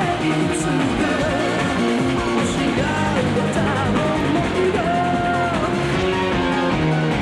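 A woman singing a rock song live with a band, electric guitar prominent under her voice.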